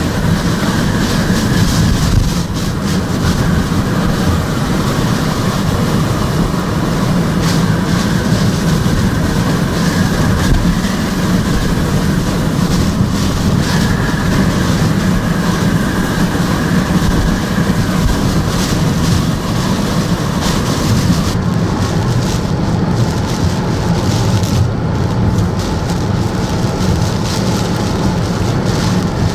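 Hurricane-force wind blowing loudly and without a break, a dense rushing noise with a heavy low rumble.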